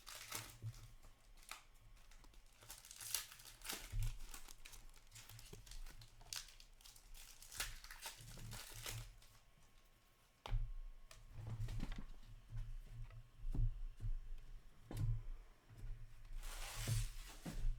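Trading-card pack wrappers tearing and crinkling as hockey card packs are opened, with scattered short rustles and clicks of cards being handled. A longer tear comes near the end.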